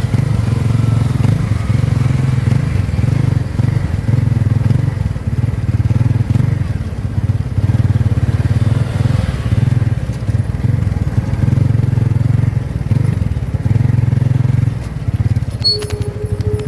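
Motorcycle engine of a tricycle running steadily, heard from on board. A short steady tone sounds near the end, over a few clicks.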